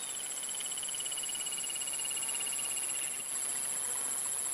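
Insects chirring steadily at a high pitch, with a second, rapid pulsing trill that stops about three seconds in.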